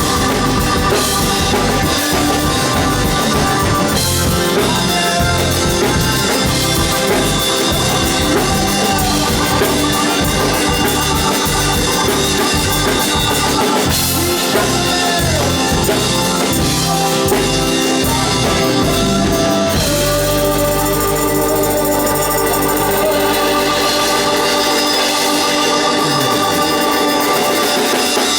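Live blues-rock band playing, with organ and drum kit prominent. About two-thirds of the way through, the steady drumming stops and the band holds a long sustained chord, which fades near the end as the song closes.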